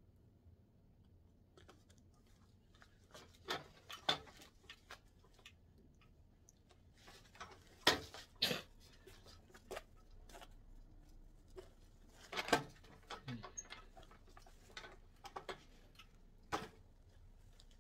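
Scattered small clicks, taps and light rustles of hands pinning down a lace frontal with plastic-headed pins, irregular and a few seconds apart.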